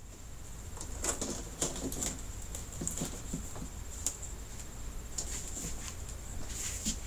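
Irregular light clicks, taps and rustles of a flat-panel TV's plastic bezel and metal frame being handled and worked apart, about one or two sharp ticks a second, over a faint steady high whine.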